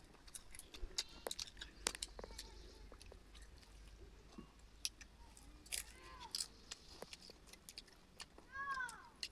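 A person chewing and crunching food close to the microphone, with many small crisp clicks. A short animal call arches up and down about six seconds in, and another comes near the end.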